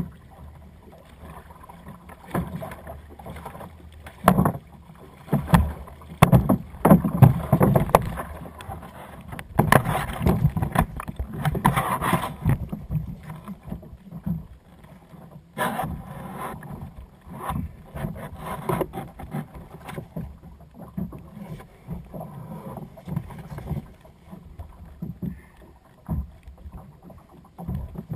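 Irregular knocks, rubbing and splashing on a plastic sit-on-top kayak as a caught fish is lifted aboard and handled, over water lapping at the hull. The busiest stretch of handling noise comes in the first half.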